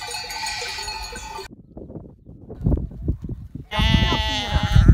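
Flock bells ringing in many pitches, cut off suddenly about a second and a half in; a low rumble with knocks follows, then a loud bleat from the flock of sheep and goats near the end.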